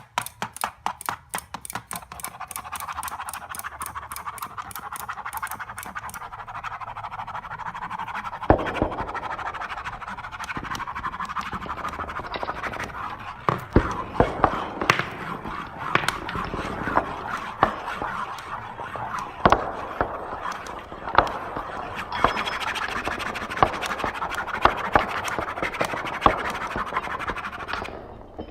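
Layered percussive noise from mechanical kinetic objects. A fast, even clicking in the first couple of seconds gives way to a steady buzzing rattle. From about a third of the way in, irregular sharp knocks join the rattle.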